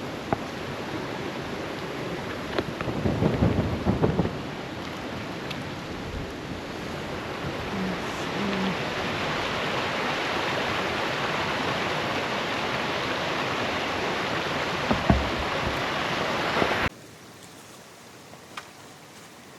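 Steady outdoor rushing noise with a few low thumps, cutting off abruptly near the end.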